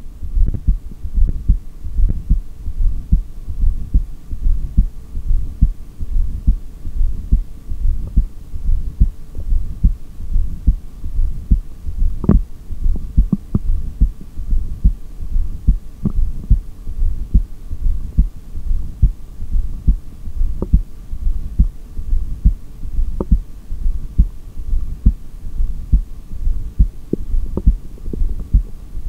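Human heartbeat heard through a stethoscope: a steady, even run of low lub-dub beats, recorded during an empty-lungs (exhaled) breath-hold. A faint steady hum sits behind the beats.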